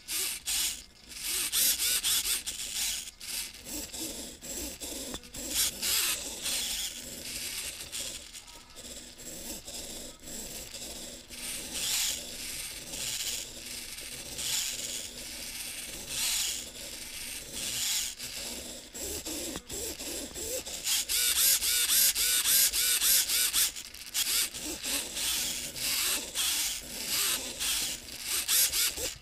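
Two Emax ES08MD metal-gear digital micro servos on a camera gimbal whirring and chattering in short, irregular bursts as they tilt the camera to counter the copter being tipped by hand. The servo noise grows busier and louder about two-thirds of the way through.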